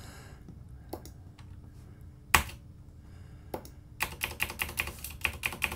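Typing on a computer keyboard: a few separate clicks, the loudest about two and a half seconds in, then a quick run of keystrokes from about four seconds in.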